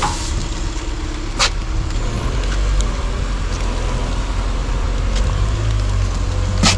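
Forklift engine running as it lifts a load of three crates, its low note growing stronger about five seconds in. One knock about one and a half seconds in, and a sharper, louder knock near the end.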